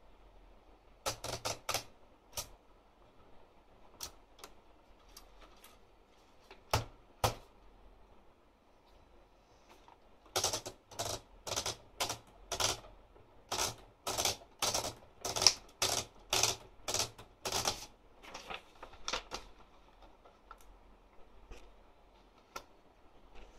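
Olympia Traveller De Luxe manual portable typewriter being typed on, its type bars striking the platen: a few scattered keystrokes at first, then steady typing at about three keystrokes a second from about ten seconds in, easing off to a few fainter strokes near the end.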